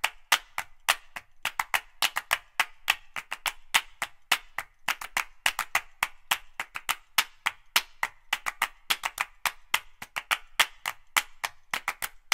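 A rapid, even run of sharp, dry percussive clicks like wood block or clapping, about five a second, with dead silence between the hits: an added percussion track.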